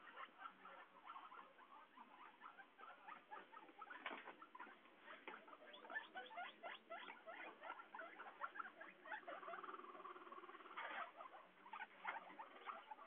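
Guinea pigs moving about in hay, faint: rapid small clicks and rustles with short squeaks, and one brief held squeal about nine seconds in.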